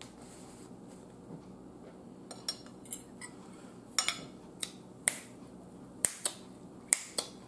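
Finger snapping: a string of sharp, separate snaps at an uneven pace of about one to two a second, faint at first and louder from about four seconds in.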